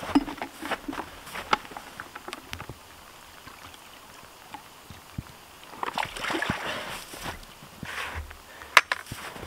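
A plastic bucket dipped into a small snow-covered spring, with water splashing and gurgling as it fills about six seconds in. Before that come scattered crunching steps in snow, and near the end a single sharp knock.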